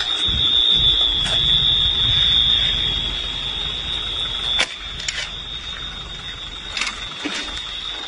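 A steady, high-pitched electronic alarm tone sounds without a break over low rumbling wind and handling noise, with a few sharp clicks; it drops somewhat in level about halfway through.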